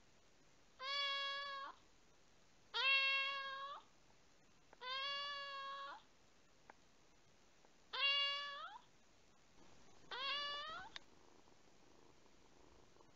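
Young kitten meowing: five drawn-out meows, each about a second long and rising in pitch at the start, spaced about two seconds apart, the last about ten seconds in.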